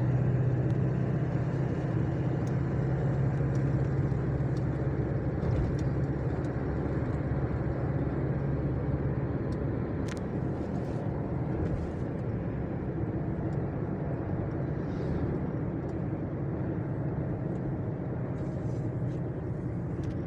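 A motor vehicle driving steadily along a road, with engine hum and tyre and road noise. The low engine hum eases off about halfway through.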